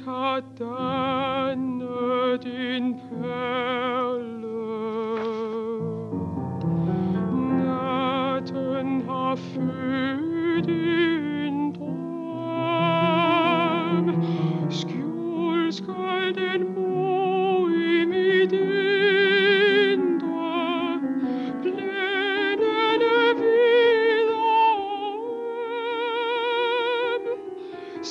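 A woman singing a song in a trained classical voice with wide vibrato, accompanied by piano.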